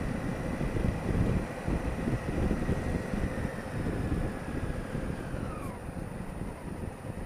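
Wind buffeting the microphone of a helmet camera on a moving Honda Africa Twin CRF1000L, with the bike's 998 cc parallel-twin engine running underneath. A faint high whine slides down in pitch a little over five seconds in.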